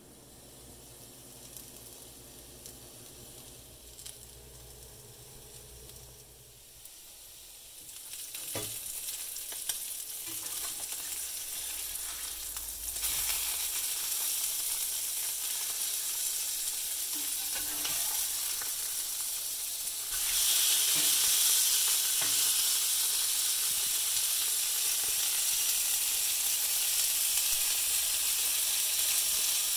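Steaks searing in oil in a hot cast-iron skillet: sizzling. The first several seconds are quiet, then the sizzle comes in and grows louder in two steps, with a few short clicks along the way.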